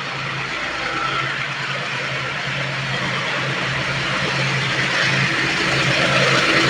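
WDG6G diesel locomotive's engine chugging, getting steadily louder as the freight train comes closer, under a rising hiss of wheels on the rails.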